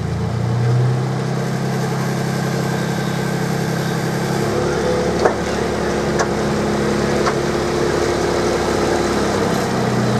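Small miniature-railway diesel locomotive's engine running steadily as it pulls its train away and past, with a few sharp clicks about halfway through.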